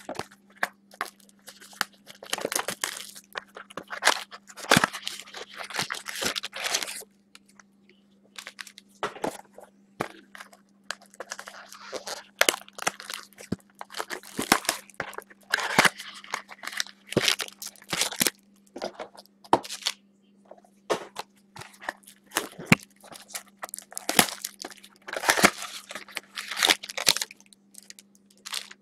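Foil trading-card pack wrappers crinkling and tearing as they are handled and opened, with irregular clicks and taps of cards and wooden card stands, over a steady low hum.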